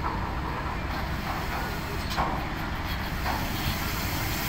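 Diesel engine of a heavily loaded truck rumbling low as it drives down off a roll-on/roll-off ferry ramp. Its brakes squeal briefly several times, loudest about two seconds in.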